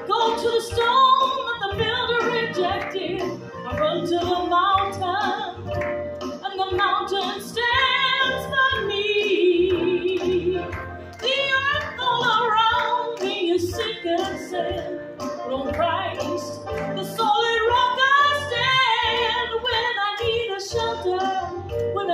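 A woman singing into a handheld microphone over amplified instrumental backing, her voice holding long notes with a wavering vibrato.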